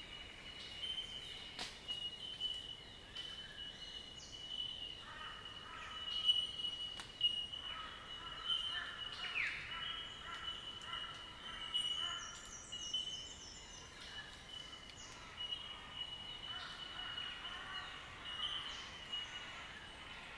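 Outdoor bushland ambience: several birds calling, with short chirps and falling whistled sweeps, over a steady high-pitched drone. A run of high descending notes comes about halfway through.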